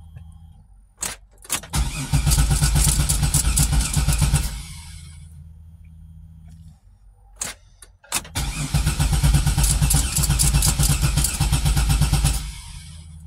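A car's starter cranking the engine in two tries, each about two and a half seconds of fast, even chugging, without the engine catching; sharp clicks come just before each try, and a low steady hum sounds between them. The owner wonders whether it is just too low on gas.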